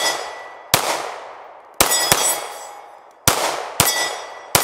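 Six shots from a Glock 43X 9mm pistol at an uneven pace, each followed by the long, fading ring of a steel plate target being hit.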